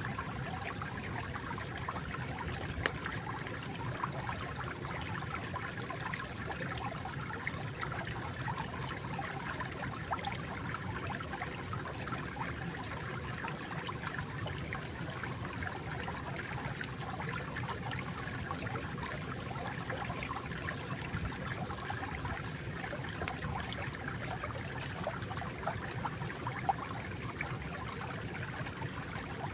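Gently flowing stream water, a steady babbling trickle with small splashes. Two faint clicks, about three seconds in and near the end.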